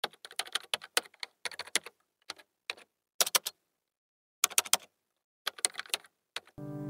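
Computer keyboard typing: short, irregular runs of sharp key clicks with pauses between them. Near the end a sustained musical tone swells in.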